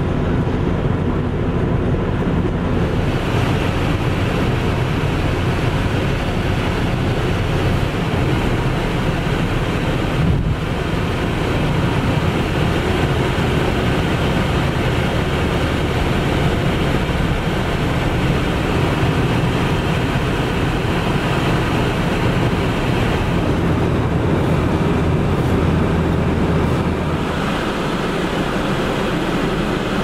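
Gale-force blizzard wind buffeting the microphone over the steady low rumble of a vehicle driving on the highway. The low rumble drops away a few seconds before the end.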